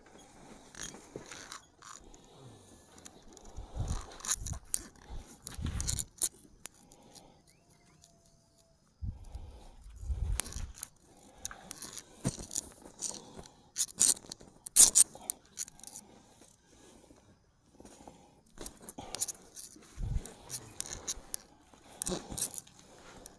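Irregular scraping, rustling and knocking of a body shifting and being handled on a padded therapy table during manual bone-setting treatment, with a few dull thumps and one sharp click about 15 seconds in, the loudest moment.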